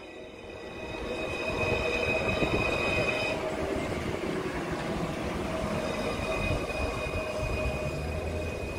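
C1 class (Citadis) tram moving at close range: a steady rumble of wheels on rail that swells over the first couple of seconds, with a high whine of several steady tones over it. The whine drops out for a couple of seconds in the middle and then returns.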